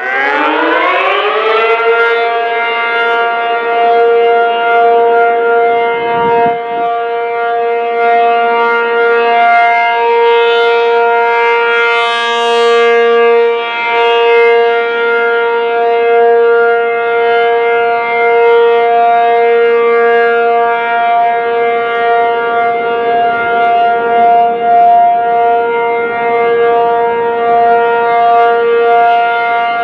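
ACA P-50 outdoor warning siren finishing its wind-up, rising in pitch over the first couple of seconds, then holding one loud steady tone that swells and dips slightly in level: the steady Alert signal.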